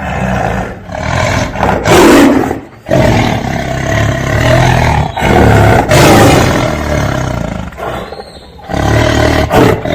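Tiger roaring and growling: a string of long, loud, rough roars with short breaks between them.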